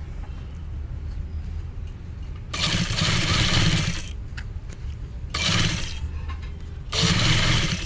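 Sewing machine stitching a collar band onto a kameez along its edge, running in three spurts: a longer one of about a second and a half starting about two and a half seconds in, then two shorter ones near the end. A steady low hum sits underneath between the spurts.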